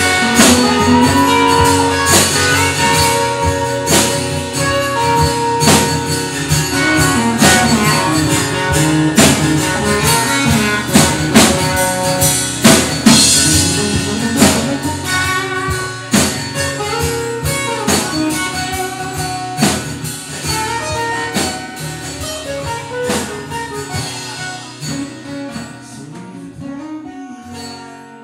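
Live band playing: two acoustic guitars with a drum kit keeping a steady beat. The music fades out gradually over the last dozen seconds.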